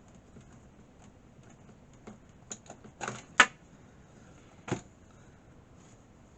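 Clicks and knocks of computer parts being handled as the power is disconnected: a few small clicks, then a sharp knock about three and a half seconds in and another near five seconds in.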